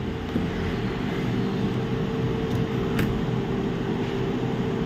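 A steady machine hum with a held tone, and one light click about three seconds in.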